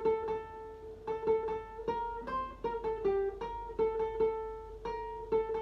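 Single notes picked high up the neck of a guitar, playing the bouncy circus-clown melody: short plucked notes with quick runs of repeated strikes on the same note and steps of a semitone between them.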